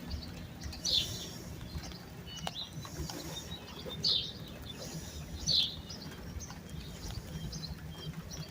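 Birds chirping: a few short, downward-sliding chirps about 1, 4 and 5.5 seconds in, with fainter calls between, over a low steady rumble.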